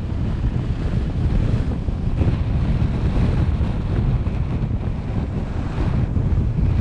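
Wind buffeting the microphone of a camera mounted on a moving car, a steady low rumble, with road noise underneath.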